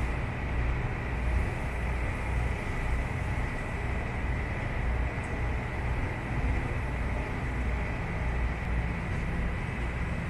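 Engines running: a Winnebago Adventurer motorhome drives aboard a small river ferry whose engine holds it against the shore. A steady low rumble with a thin, steady high whine.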